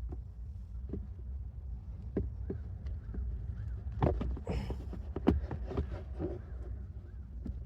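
Irregular clicks and knocks of plastic cabin-filter and glove-box parts being handled and refitted, with a brief rustle near the middle and the two sharpest knocks about four and five seconds in, over a steady low rumble.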